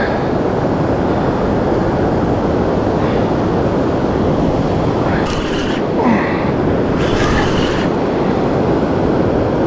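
Steady loud rush of wind buffeting the microphone together with breaking surf, with a few faint short sounds over it.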